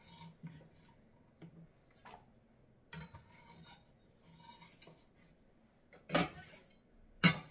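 Irregular scraping and rubbing of kitchen utensils during food preparation, with two louder short scrapes about six and seven seconds in.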